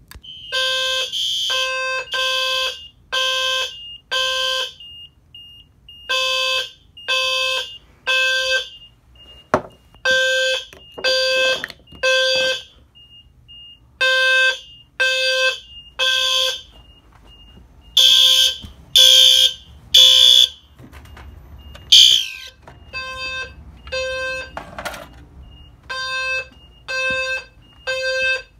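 System Sensor fire alarm horns, including the HW-LF low-frequency sounder, going off in the temporal-3 evacuation pattern: three pulses, a pause, repeating. Each pulse mixes a low buzzing tone with a higher shrill horn tone, and a thin high beep keeps ticking in the gaps. A brief falling squeal comes about three-quarters of the way in.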